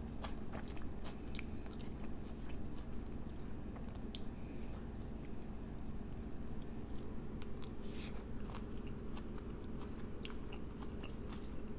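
Close-miked chewing of a poke bowl of raw yellowtail and other fish with sushi rice and mixed greens: wet chewing broken by many small crisp clicks and crunches.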